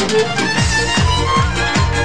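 Music with a quick, steady beat, about three drum hits a second, under a busy melody.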